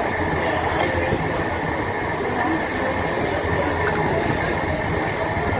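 Steady rumble and whine of a barbecue table's overhead extraction fan, with a couple of faint clicks.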